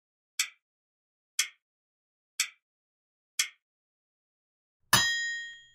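Countdown timer sound effect: four short ticks about a second apart, marking the seconds allowed to answer, then a louder ringing chime near the end that signals time is up.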